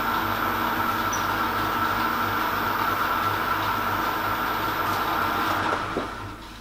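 Metal lathe running steadily, spinning a quarter-inch stainless steel piston rod while an aluminium lap charged with diamond lapping compound is worked along it. The running dies away about six seconds in.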